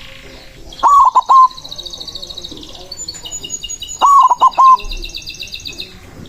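White zebra dove (perkutut putih) cooing: two loud phrases of four or five quick, falling notes, about three seconds apart, the gacor song used as a lure to call other perkutut. A fast, high twittering runs behind the coos.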